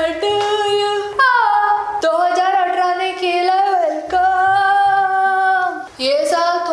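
A woman singing a series of long held notes, each a second or two, with short breaks between them and no instruments under the voice.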